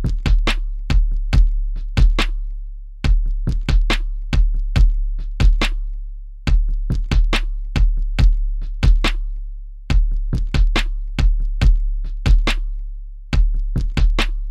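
Electronic drum-machine beat: sharp percussive hits over a deep sustained bass, in a loop that repeats about every three and a half seconds.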